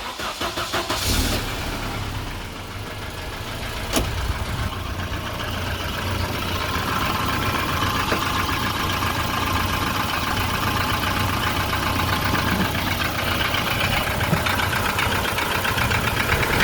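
Volvo 240's B230F 2.3-litre four-cylinder engine cold-started: it cranks and catches within about a second, then idles steadily with a fast even rhythmic knock, which the owner takes for piston slap. A single sharp click about four seconds in.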